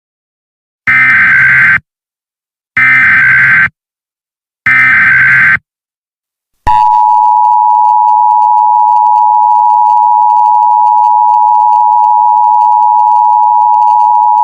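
Emergency Alert System tones: three short bursts of SAME header data, a harsh digital warble, about a second apart, then the steady two-tone EAS attention signal, which starts partway through and sounds for about eight seconds.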